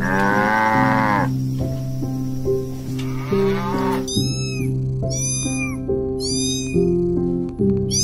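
A cow mooing once for about a second, then a fainter call about three seconds in. From about halfway through, a cat meowing repeatedly in short, high-pitched meows about once a second, over soft background music.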